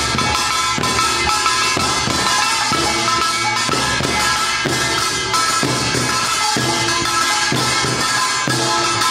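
Korean folk percussion music: drum strokes about once a second over a continuous metallic ringing.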